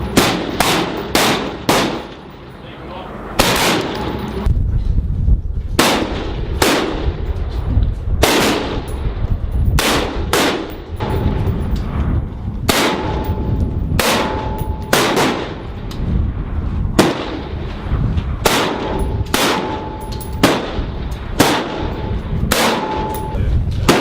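M27 Infantry Automatic Rifles firing 5.56 mm rounds on a range: sharp shots, irregularly spaced, singly and in quick pairs or short strings, each with an echoing tail. A brief ringing tone follows several of the shots.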